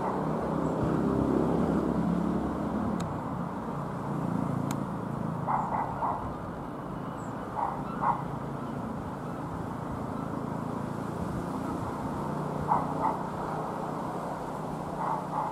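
Steady drone of a Reims Cessna F152's four-cylinder piston engine as the light aircraft flies past. Short calls from an animal break in a few times, in pairs.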